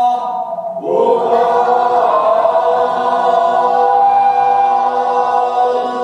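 Voices chanting a sustained, wordless choral chord. About a second in, the voices slide upward into a new chord and hold it.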